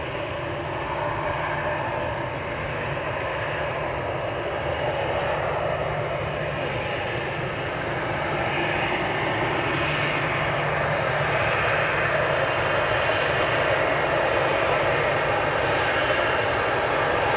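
Jet engines of an Emirates Airbus A380-861, four Engine Alliance GP7200 turbofans, running at power on the runway: a steady, loud noise with a low hum underneath, growing gradually louder as the aircraft comes closer.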